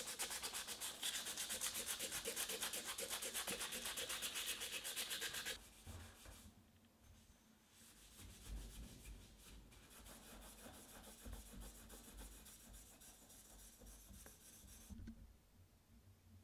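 Hand sanding of the cast-aluminium housing of a 1934 Vorwerk Kobold vacuum cleaner, first with abrasive cloth and then with an abrasive pad, in quick back-and-forth strokes. About five and a half seconds in the rubbing becomes much quieter, and it stops shortly before the end.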